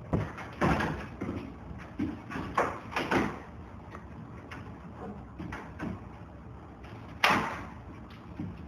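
Irregular knocks and thuds of wall demolition: pieces of a wall being struck and pried loose and falling, with one loudest impact about seven seconds in.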